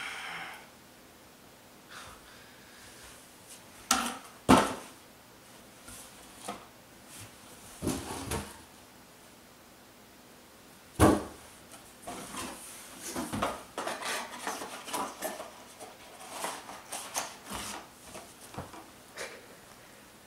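Handling noise of boxed items and packaging: a few sharp knocks and clunks, then a stretch of rustling and light clatter in the second half.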